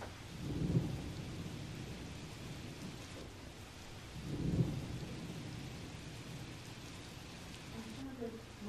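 Steady rain with low rumbles of thunder that swell about a second in and again about halfway through.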